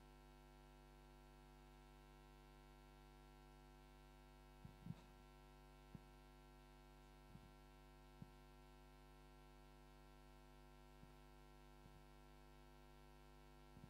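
Near silence: a steady electrical mains hum, with a few faint, brief clicks and knocks scattered through it.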